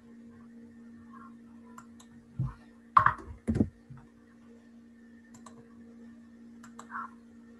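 Scattered computer keyboard and mouse clicks, with a few louder thumps against the desk about three seconds in and another small knock near the end, over a steady low electrical hum.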